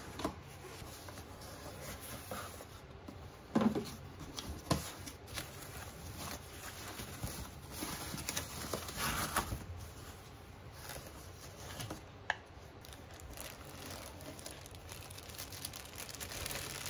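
Hands unpacking a cardboard box: a few soft knocks of the cardboard lid and inner boxes, with tissue paper and plastic wrapping rustling and crinkling.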